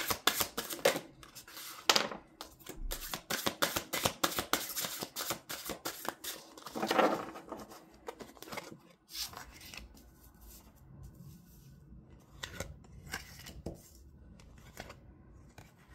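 A deck of tarot cards being shuffled by hand: a rapid run of crisp card flicks and clicks, thinning to scattered clicks after about nine seconds.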